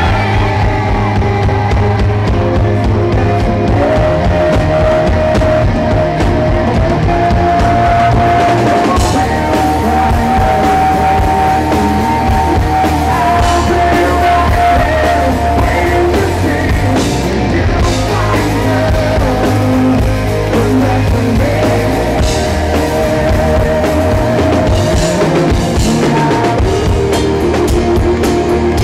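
A live rock band playing, with drum kit, electric guitar and singing, and long held melody notes over a steady beat.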